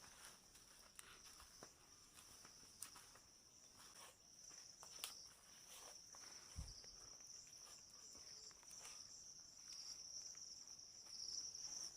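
Faint, steady high-pitched chirring of insects, crickets by the sound of it, with scattered light footsteps and rustles, and a soft low thump a little past halfway.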